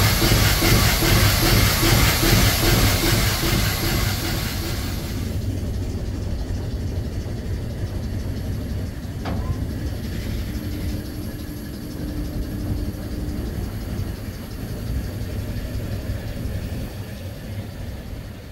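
The ship's twin-cylinder steam engine running with a steady rhythmic beat and hiss, which drops away suddenly about five seconds in, leaving a quieter steady rush.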